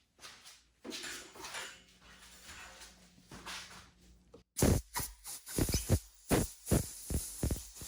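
Short blasts of compressed air from an air nozzle blowing a small engine part clean: softer hissing and handling first, then about eight sharp bursts of air in quick succession in the second half, rumbling on the microphone.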